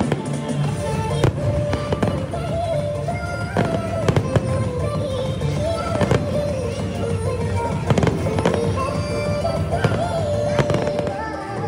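Fireworks display going off: irregular sharp bangs and crackles every second or two, over music with a melody.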